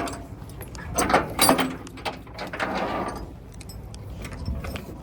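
Handling noise of gear being moved: a few sharp knocks and light rattles, with a scraping, rustling swish about halfway through.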